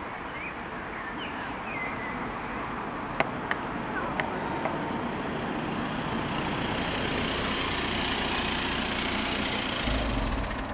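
A car approaching on the road and drawing up to the closed crossing. Its tyre and engine noise grows steadily louder and peaks with a low rumble as it arrives about ten seconds in. Small birds chirp in the first couple of seconds, and there are a few sharp clicks a little after three seconds.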